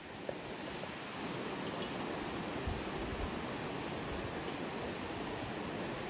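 Wind moving through cloud-forest canopy: a steady rushing noise over a steady high-pitched hiss, with low rumbles of wind buffeting the microphone around the middle.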